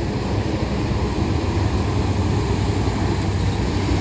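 Steady low rumble of road traffic, engines and tyres running on the road.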